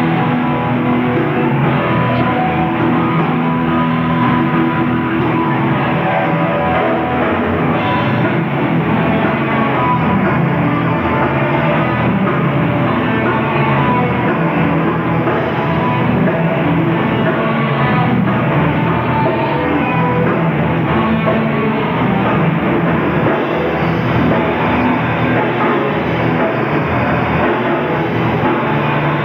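Live rock band playing, with electric guitars and a drum kit, recorded on VHS tape so the sound is dull, with little treble.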